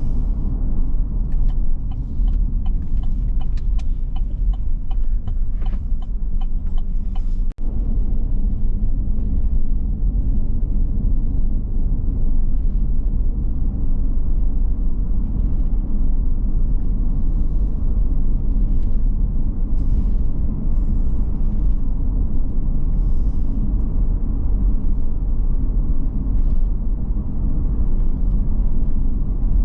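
Steady low road and engine rumble inside a moving car's cabin, with a brief break in the sound about seven and a half seconds in.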